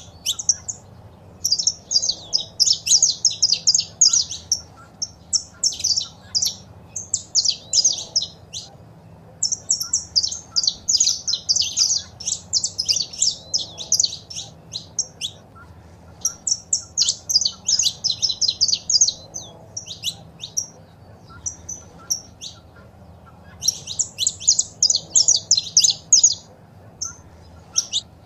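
Saffron finches calling and singing: runs of rapid, high chirping notes lasting a few seconds each, with short pauses between, over a faint low hum.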